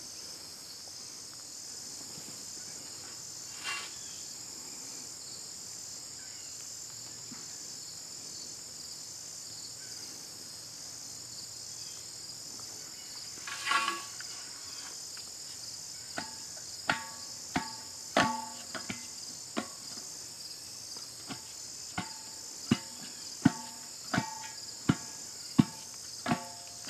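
A spade turned upside down tamps soil around a freshly set post. From about 16 seconds in come over a dozen sharp, irregular knocks, somewhat more than one a second, each with a short metallic ring. A steady insect chorus of crickets shrills throughout.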